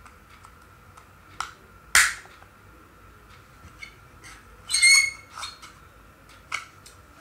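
Plastic end cap and cell holder of a fake Xiaomi 10400mAh power bank being pried out of its aluminium shell: scattered clicks, a sharp snap about two seconds in, and a short squeak just before five seconds in as the plastic slides against the metal.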